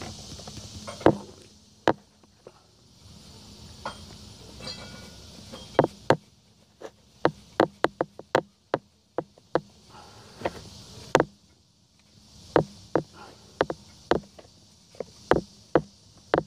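Irregular sharp clicks and taps of hand tools against engine parts, some in quick runs of three or four, over a faint steady hiss.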